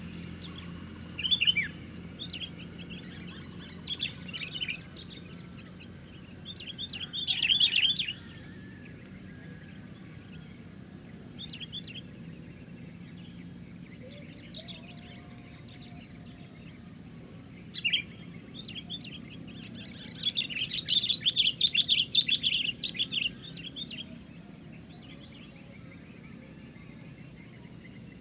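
Sooty-headed bulbuls calling in short bursts of quick chattering notes, the longest and loudest run of them about twenty seconds in.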